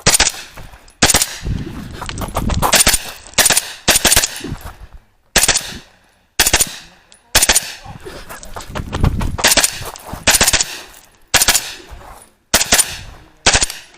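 Pistol-caliber carbine, a 10.5-inch short-barrelled rifle, firing fast strings of shots, mostly in quick pairs with short pauses between groups. The firing goes on through the whole course of fire and stops near the end.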